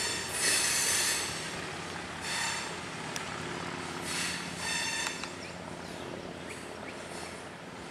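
Freight train wheels squealing against the rails as loaded coke hoppers and a caboose roll past, over a steady rumble of the cars. The squeal is loudest in the first second and comes back in shorter bursts every second or two.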